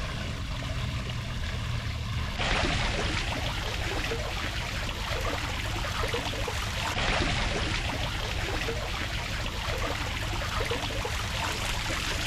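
Water fountain splashing steadily, a little louder from about two and a half seconds in.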